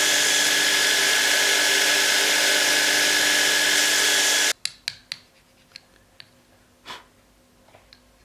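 A power tool runs steadily and loudly, then cuts off suddenly about four and a half seconds in. Light knocks and clicks follow as the work is handled.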